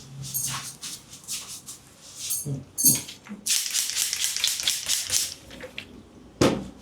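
Hands rubbing and scratching briskly through hair and scalp during a head massage, in quick scratchy strokes, with a few louder taps.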